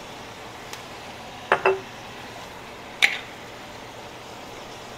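Pasta sauce poured from a glass jar into a pan of ground beef and vegetables: a faint steady hiss, with two short clinks of the jar against the pan, about one and a half and three seconds in.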